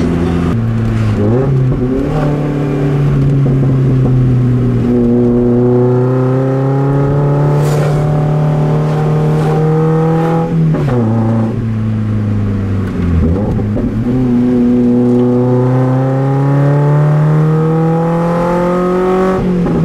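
Car engine heard from inside the cabin, pulling through the gears under acceleration: its pitch climbs slowly and drops sharply at each gear change, about half a second in, around the middle and just before the end.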